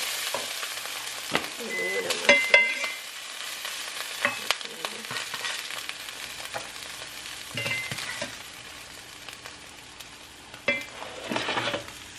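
Buttered corn sizzling in a hot cast-iron skillet, with a slotted spatula scraping and knocking against the pan as the corn is scooped out. The sizzle runs as a steady hiss under scattered sharp scrapes.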